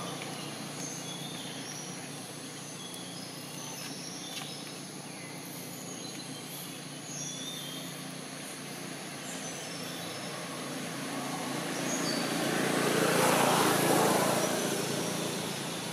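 Outdoor background with small birds chirping, and a vehicle passing by, swelling to its loudest a little after the middle and fading near the end.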